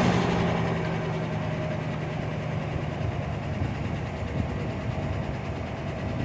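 Chevy engine settling back from a rev to idle, then idling with a steady light ticking from the top end. The owner is unsure whether it is the typical Chevy tick or a lifter tick.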